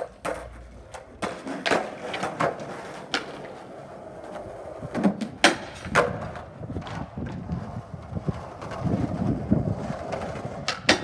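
Skateboard wheels rolling on smooth concrete, broken by a series of sharp clacks as the board's tail and deck strike the ground on trick attempts and landings.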